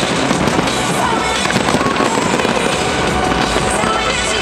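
Aerial fireworks shells bursting in rapid succession: a continuous barrage of overlapping bangs and crackle with no pause.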